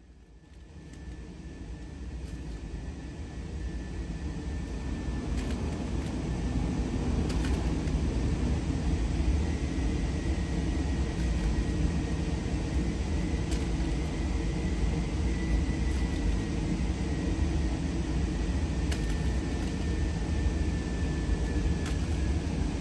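Steady low rumbling noise, like rushing air or machinery, fading up over the first several seconds and then holding, with a faint high steady tone above it and a few faint ticks.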